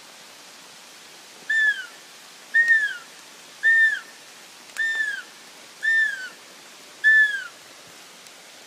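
Roe deer fiep calls: six short, high whistles, about one a second, each dropping in pitch.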